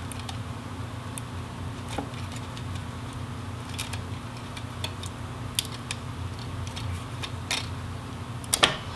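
Scattered light clicks and scratches of a fingernail picking at rubbery tape on a disassembled Oculus Quest 1 headset's frame, with a sharper cluster of clicks near the end. A steady low background hum runs underneath.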